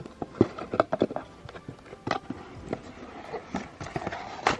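Irregular taps, knocks and rustles of objects being handled, a dozen or so sharp clicks at uneven intervals.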